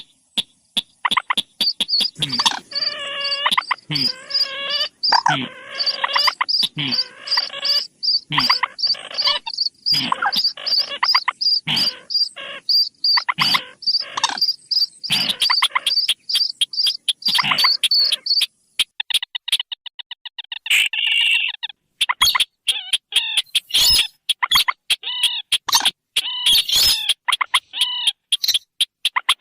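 Bird-lure recording of paddy-field bird calls, the 'sintar' and 'mandar' (rail) calls mixed together: rapid runs of sharp repeated notes, with a high evenly pulsed note series that stops about two-thirds of the way through, followed by a different fast repeating call.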